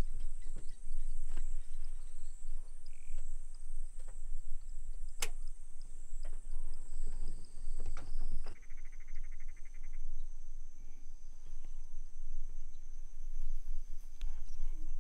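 Dusk bush ambience: insects chirring in a steady high-pitched drone over a constant low rumble, with scattered clicks and knocks and a short, rapidly pulsing call about halfway through.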